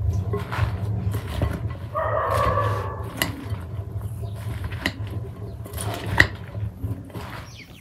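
A metal spoon tossing a chopped salad in a glass bowl: sharp clinks of spoon on glass, the loudest about six seconds in, over the rustle of lettuce leaves. A short pitched sound comes about two seconds in, and a steady low rumble runs underneath.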